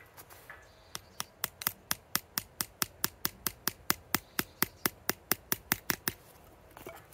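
A small hammer tapping a bent wire into a piece of wooden branch: a quick, even run of light taps, about four a second, starting about a second in and stopping near the end.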